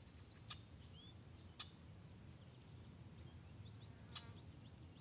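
Near silence: faint outdoor ambience with a few short, high bird chirps and three sharp little clicks.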